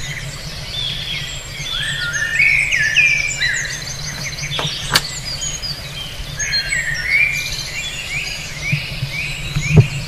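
Many small birds chirping and trilling at once, short quick notes overlapping all through, over a steady low rumble. A sharp click comes about five seconds in and a low thump near the end.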